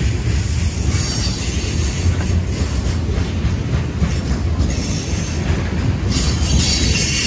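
Covered hopper cars of a freight train rolling past close by: a steady, loud rumble of steel wheels on the rails, with a higher hiss joining about six seconds in.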